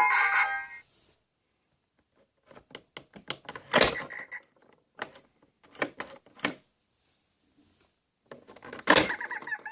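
A jingle ends, then scattered sharp clicks and knocks, like hard objects being handled and set down. The loudest knocks come about four seconds in and near the end, just before music starts again.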